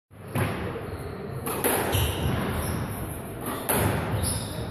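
Squash rally: the ball cracks off the rackets and the court walls several times, sharp echoing impacts roughly one to two seconds apart.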